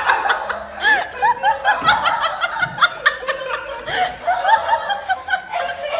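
High-pitched laughter in quick, repeated short bursts.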